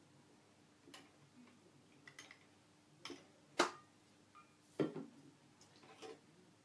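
Porcelain teaware clinking: a handful of sharp, irregular clinks of cups and lid being handled while the tea is brewed, the loudest about three and a half seconds in.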